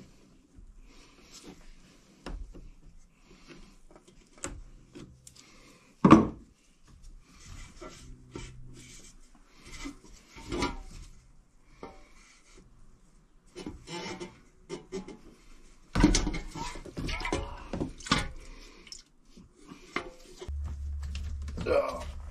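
Hand work on a fuel hose clamp with a screwdriver and a stainless steel bucket: scattered clicks, scrapes and metal knocks, the loudest about six seconds in and a busy run of knocks around two-thirds of the way through. A low steady hum comes in near the end.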